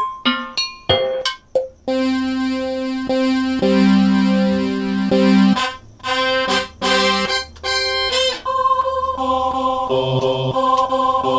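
Pitched instrument samples from a Roland SPD-20-style drum pad tone set, played one after another: a quick run of short struck notes, then held keyboard-like tones, then more short notes and a last run of held tones that change pitch.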